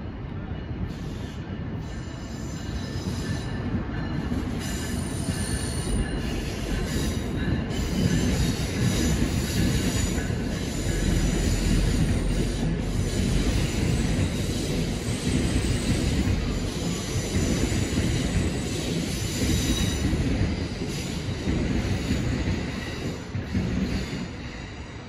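A train passing on the nearby railroad: a heavy rumble with high, steady wheel squeal. It grows louder over the first several seconds and eases off near the end.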